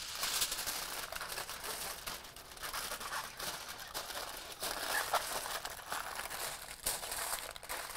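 Heavy aluminum foil crinkling and rustling with many small crackles as gloved hands fold it up over a smoked pork shoulder to wrap it mid-cook.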